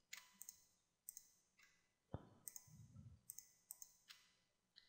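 Faint, irregularly spaced clicks of a computer mouse and keyboard, about a dozen, over near silence.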